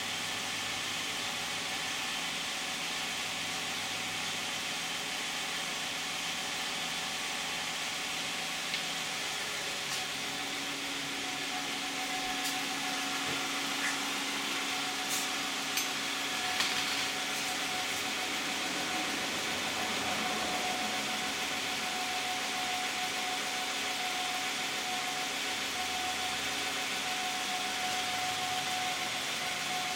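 2010 Toyota Camry's 3.5-litre V6 (2GR-FE) idling steadily, heard from in front of the car through the closed hood and pretty quiet. A few faint clicks come in the middle. The owner takes the quiet idle as a sign of a healthy engine at 93,000 miles.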